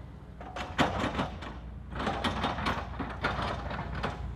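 Hitachi excavator's diesel engine running steadily under two stretches of scraping and crunching as the bucket rakes soil and rocks across the ground, the second one longer.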